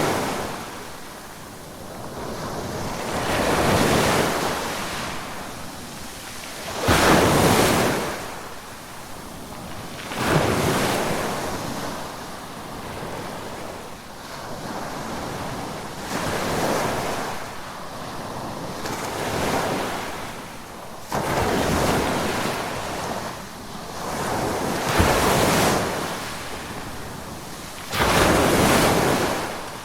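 Ocean waves breaking and washing up the shore, one surge every three to four seconds. Several waves crash in suddenly, while others swell up more gradually and fade out.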